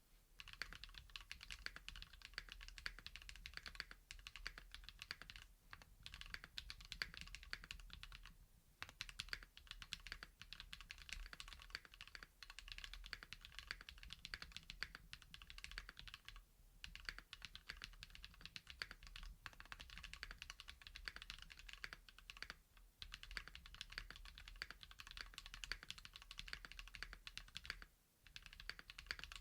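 Continuous fast typing on a Klippe T mechanical keyboard with lubed KNC Keys Green Jacket linear switches, a polycarbonate plate and GMK keycaps: a dense run of keystrokes broken by a few short pauses.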